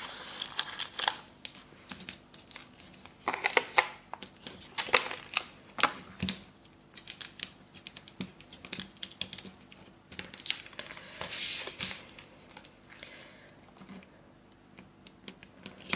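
Paper and card being handled on a cutting mat: irregular rustling, crinkling and small taps as adhesive backing is peeled off and a paper layer is pressed down onto a card base.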